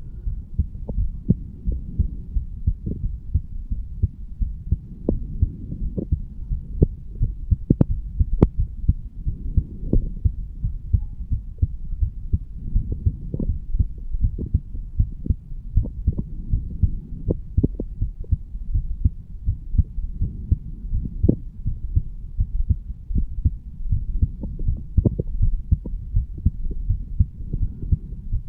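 Human heartbeat of a standing 35-year-old man, picked up over the mitral (bicuspid) valve area: a continuous run of low, dull thuds.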